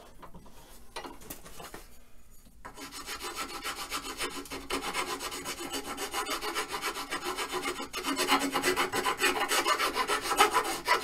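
A coarse hand file rasping across a wooden dowel, smoothing its tapered end in rapid repeated strokes. The filing starts about two and a half seconds in and grows louder in the second half.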